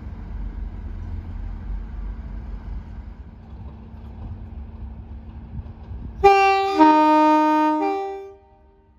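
Test train's two-tone horn sounded about six seconds in: a short higher note, a longer lower note, then a short higher note again. Before it, the low rumble of the Class 37 diesel locomotive working the train.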